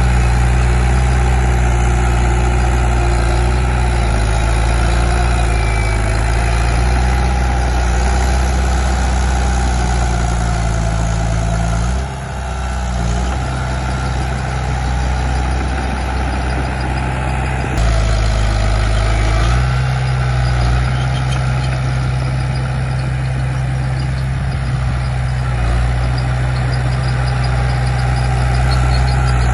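Heavy diesel earthmoving machinery running steadily under work. The engine note dips briefly about a third of the way through and shifts suddenly just past the middle.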